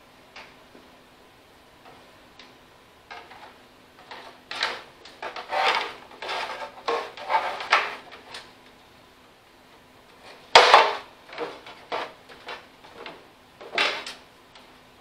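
Plastic cowl panel being fitted around a lawn tractor's steering column: scraping, rubbing and clattering of plastic against the plastic hood and metal frame. A single sharp knock past the middle is the loudest sound, followed by a few lighter taps.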